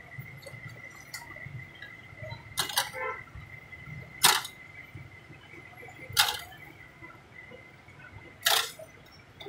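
A knife striking a steel tray while cutting grilled chickens: four sharp clacks about two seconds apart, the first a quick double. A steady high tone sounds underneath.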